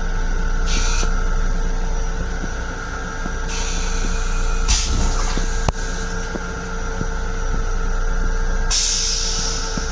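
Steady rumble of an LIRR M7 electric railcar running, with steady hum tones over it, heard from inside its restroom. Three bursts of hiss cut in: a short one about a second in, a longer one in the middle, and the loudest near the end. There is a sharp click just after the middle.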